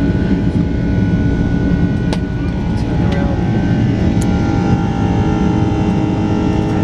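Airliner cabin noise during the climb after takeoff: a steady, loud rumble of jet engines and rushing air, with a few steady whining tones above it.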